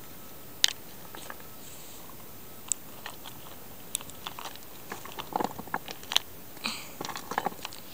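Small plastic toys handled on rough rocks close to the microphone: scattered sharp clicks and taps with short crunches of grit, a few single ones at first and a busier run of them in the second half.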